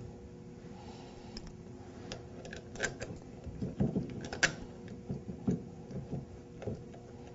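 Scattered clicks and light metallic knocks as bolts are turned in by hand from under a steel workbench plate into a waterjet intensifier end bell; the loudest knock comes about four and a half seconds in.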